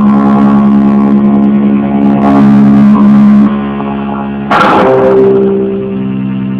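Sustained chord from an instrument played through effects, ringing steadily; a new chord is struck about four and a half seconds in and rings on.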